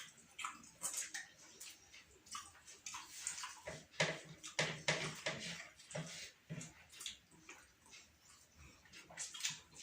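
People eating chicken biryani: irregular chewing and smacking mouth sounds with short clicks, several a second.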